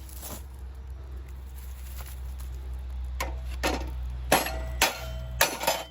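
Sharp metallic clinks, about six in the second half, as a bolt and tools are worked against the steel of a chipper/shredder's blade assembly. A steady low hum runs under them.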